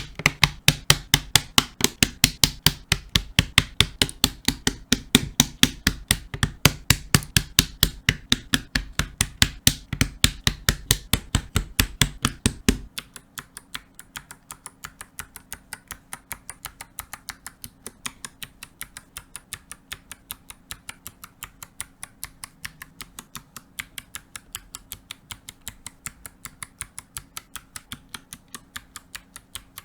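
Mechanical keyboard parts being pressed into place during assembly: a fast, even run of sharp clicks and snaps, about three a second. They are loud and deep for the first dozen seconds or so, then turn lighter and softer over a faint steady hum.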